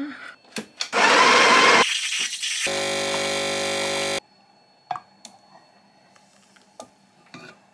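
Coffee machine running: a loud rushing burst about a second in, then a steady buzzing hum for about a second and a half that cuts off suddenly, followed by a few light clicks and knocks.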